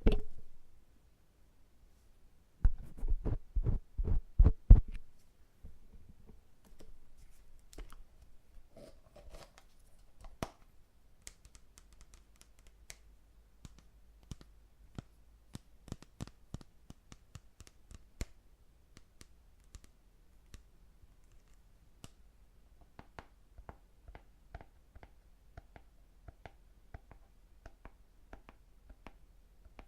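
Small ear-cleaning tools working in a silicone ear model, clicking and scratching close to the microphone. A sharp click at the start, a quick run of low thumps about three to five seconds in, then faint scattered clicks and scrapes.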